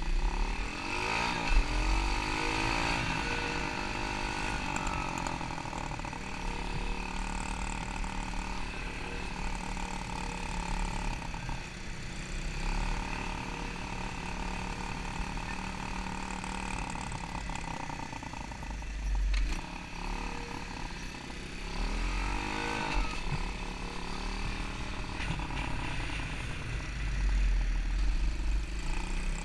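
Small off-road engine running under throttle, heard from a helmet-mounted camera. The revs rise and fall twice, about two seconds in and again about twenty-two seconds in.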